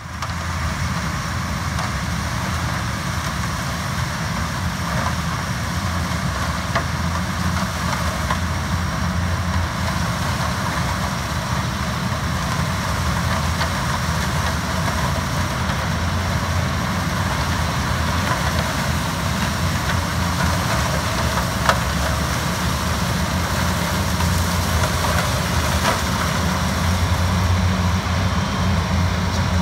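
Yanmar HS 2000 sugarcane harvester running steadily while cutting cane, with a tractor pulling the cane trailer alongside: a constant low engine drone under a noisy rush, with a few faint sharp ticks.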